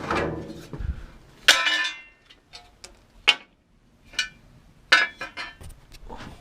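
Steel Mini door hinge repair panels being handled and knocked together, clanking and clinking several times; the loudest knock, about one and a half seconds in, rings on briefly like struck sheet metal.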